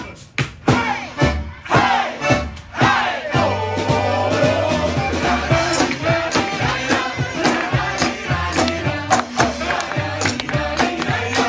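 Live band music with a steady beat and a walking bass line, with several voices calling and singing over it.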